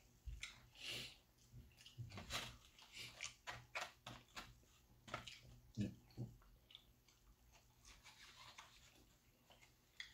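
Faint, close-up chewing and mouth noises of a man eating fried food, with scattered soft clicks and smacks. A plastic fork picks at a foam takeout box.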